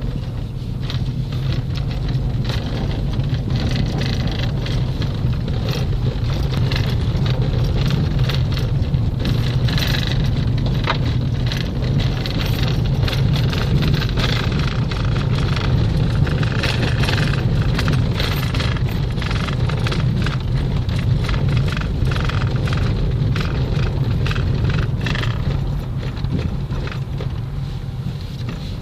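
A vehicle in motion at a steady speed: a continuous low engine and road hum, with frequent small rattles and clicks over it.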